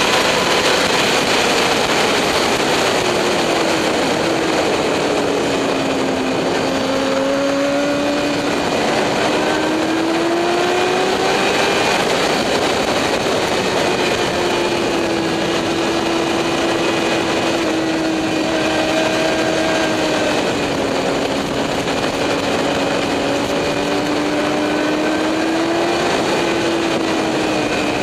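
Motorcycle engine running at speed on a racetrack, its pitch slowly falling and rising several times, under a steady loud rushing noise.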